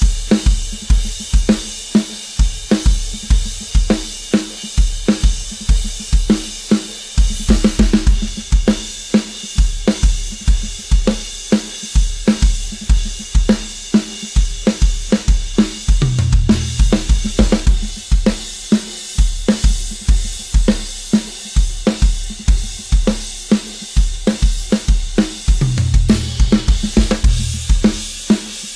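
Drum kit played in a steady, fast beat, with kick drum, snare, hi-hat and cymbals, loud throughout.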